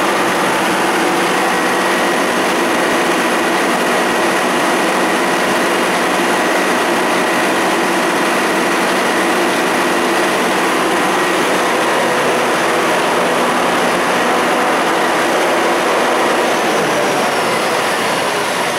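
Diesel generator set running steadily: a loud, even engine drone with a thin high whine on top.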